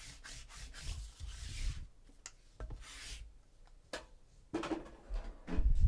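Rubbing and scraping handling noise with a few sharp clicks: a hand sliding over the tabletop and a shrink-wrapped card box. It is loudest near the end.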